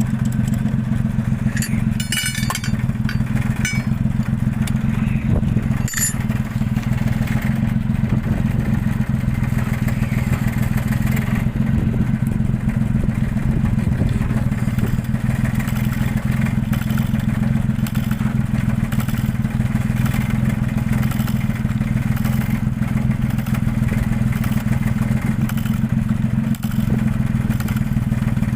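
Mitsubishi Fuso Super Great's 6M70 inline-six diesel engine idling steadily at an even, unchanging speed, with a few light clicks in the first several seconds.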